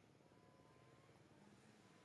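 Near silence: faint outdoor background with a low hum.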